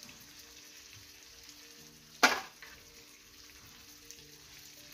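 Food sizzling faintly in a hot frying pan, with one sharp knock about two seconds in.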